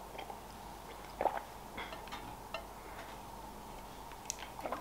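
Quiet sips from a ceramic mug and a few small clinks of crockery, a handful of brief sounds with the loudest about a second in.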